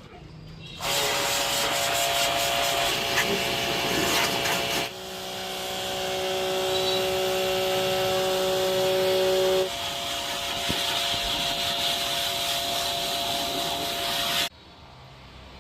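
Pressure washer jet pump running, its motor whine under the hiss of the water jet spraying an air-conditioner unit during cleaning. It starts about a second in, shifts abruptly in pitch twice and cuts off abruptly near the end.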